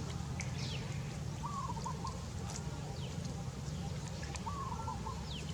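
Bird calls: a short warbling phrase sung twice, about three seconds apart, with a few thin, high, falling chirps in between, over a steady low rumble.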